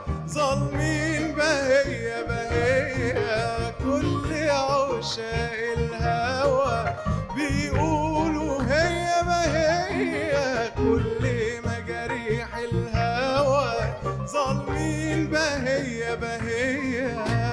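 Live Arabic song: a male soloist singing an ornamented, wavering melody over a backing choir, keyboard, qanun and hand percussion.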